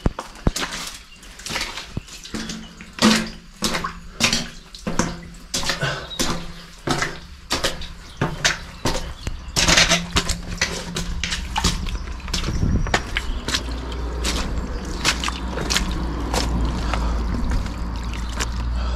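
Footsteps of a trail runner on a rough trail, about two steps a second, with a low rumble of wind on the microphone building in the second half.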